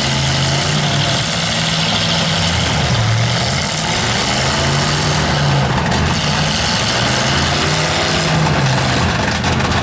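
Demolition-derby pickup truck engines running loud and steady, their revs drifting up and down.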